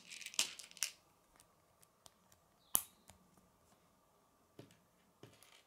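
Small plastic K'nex pieces handled over a wooden table: a brief rustle with clicks at the start, one sharp plastic click about three seconds in, and a few soft clicks near the end.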